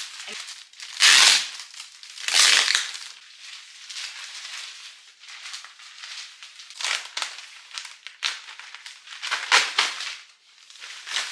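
Clear plastic wrapping on a new upholstered headboard being cut and pulled off, crinkling and rustling in several loud bursts with quieter rustling between.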